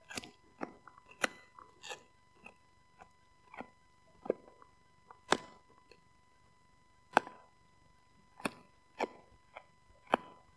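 Husky chewing a rawhide-style chew stick: irregular sharp crunches and gnawing clicks, one every second or so with short quiet gaps between.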